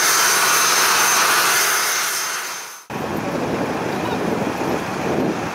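ATR 72 turboprop engines running, with a steady high whine over the propeller noise, fading out just before halfway. Then a sudden cut to outdoor wind noise with the faint murmur of people.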